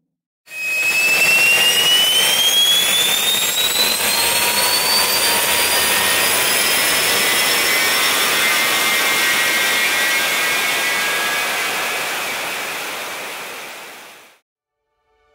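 Added sound effect: a loud, steady rushing roar with a high whine that rises slowly in pitch. It eases off slightly near the end, then cuts off suddenly.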